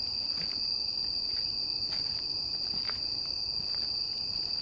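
Steady, high-pitched chorus of night insects, with a few soft footsteps on the path.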